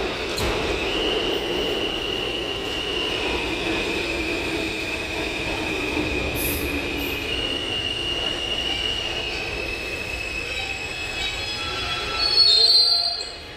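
R211T subway train in a station: a steady rumble with thin high squealing tones from the wheels that shift in pitch, and a brief louder high-pitched burst near the end.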